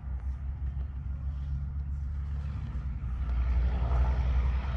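Low vehicle rumble, growing louder about three seconds in.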